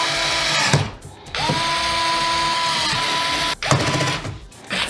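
Fanttik S1 Apex electric precision screwdriver's small motor whirring at high speed as it drives laptop case screws. One run stops about a second in, and a second run of about two seconds starts with a short rise in pitch and cuts off. A few small clicks follow near the end.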